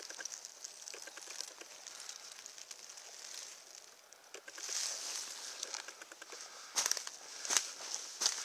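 Faint rustling and crackling of dry leaf litter, then from about seven seconds in, footsteps crunching on dry leaves and twigs of the forest floor, a few steps under a second apart.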